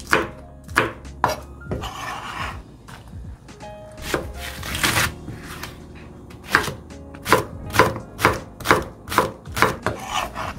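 Kitchen knife chopping on a cutting board in runs of sharp chops, about two a second, with a couple of longer scraping swishes between runs.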